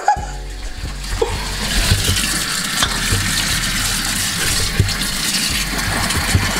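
Kitchen faucet running steadily into a stainless steel sink, the stream splashing over a person's cupped hand and face as they rinse off.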